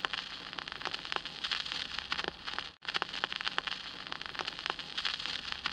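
Crackling hiss of TV static with many small crackles, cutting out briefly about three seconds in.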